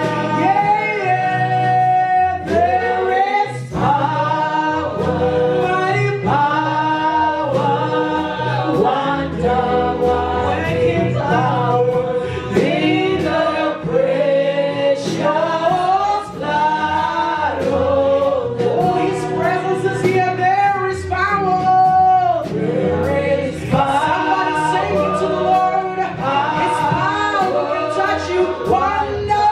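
Gospel worship song sung by a choir of voices, with instrumental accompaniment carrying steady low notes and percussive hits.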